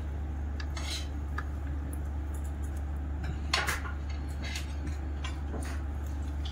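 Light clicks and clinks of tableware: a serving tray and small sauce bowls knocked as uttapam is torn and dipped by hand, with a sharper clatter about halfway through, over a steady low hum.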